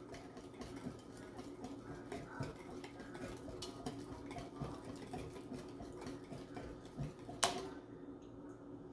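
Light, irregular clicks and taps of a utensil and eggs against a mixing bowl as two eggs are added to banana cupcake batter, with one sharper knock near the end.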